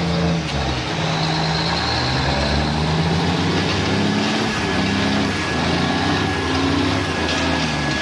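Diesel engine of a loaded logging semi-truck working hard as it pulls through mud, its pitch shifting up and down; the heavy load is shown by the black exhaust smoke.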